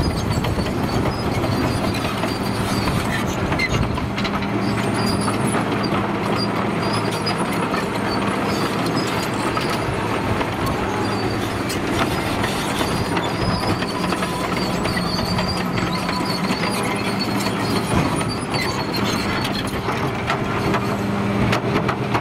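Caterpillar 953C track loader travelling: its diesel engine runs steadily while the steel track links clank continuously, with a thin high squeal now and then.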